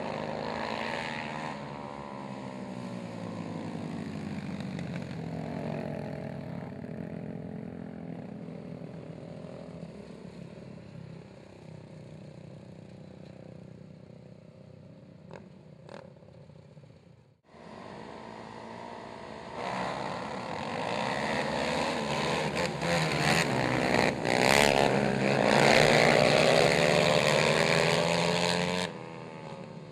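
Racing quad ATV engines revving up and down as they run laps of a dirt track. The sound cuts out abruptly a little past halfway. Several quads then come in louder and fall away shortly before the end.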